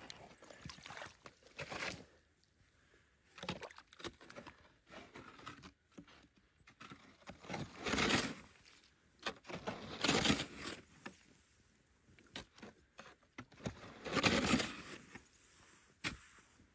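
A long-handled tool chopping into pond ice and scooping out slush and broken ice from a hole in the ice, in separate splashing, scraping strokes a few seconds apart, the loudest about eight, ten and fourteen seconds in.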